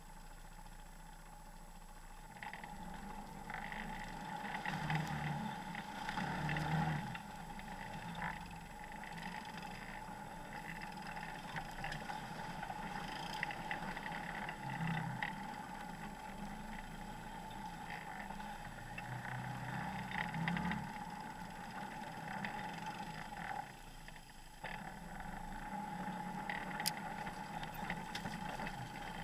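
Off-road vehicle's engine running as it drives a rough dirt trail, louder in swells with the throttle and dipping briefly near the end, with a few sharp knocks from the bumps.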